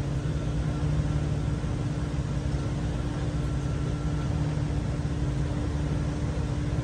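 Steady low drone of running machinery with a constant humming tone.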